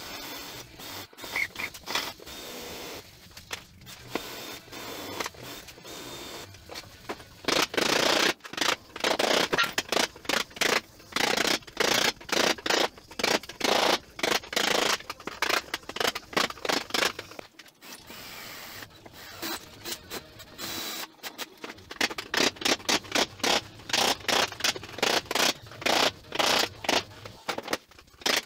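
Hand hammer blows on a chisel cutting into the rusty sheet steel of a 1954 VW bus front frame: sharp metal-on-metal strikes, sparse and quieter at first, then loud and rapid, about three or four a second, from about eight seconds in.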